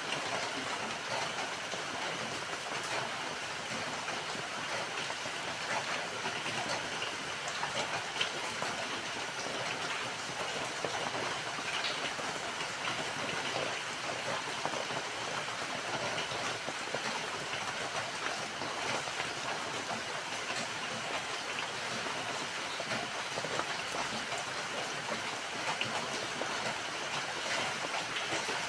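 Steady rain falling: an even hiss with many small drop ticks, unchanging throughout.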